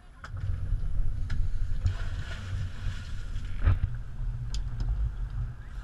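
Dive boat's engine running with a low, steady rumble, starting about a third of a second in, with a few sharp knocks over it.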